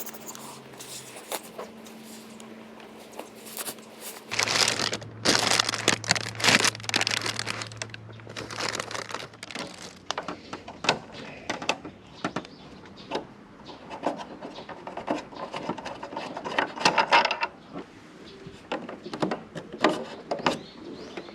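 Hand work with tools and parts: an irregular run of clicks, knocks and scrapes with some crinkling, busiest about a quarter of the way in and again near three quarters, over a faint low hum in the first half.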